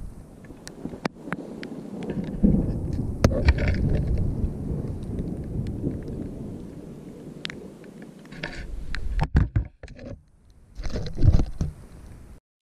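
Thunder rumbling low in a mountain storm, swelling about two seconds in and dying away by about seven, with rain falling. Scattered sharp ticks run throughout, and a few louder rustling knocks come near the end.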